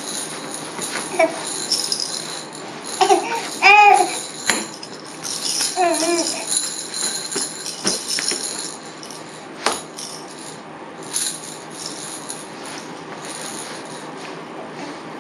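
Baby rattles jingling on and off as a young infant shakes them in both hands, with a few short high-pitched baby coos in the first half.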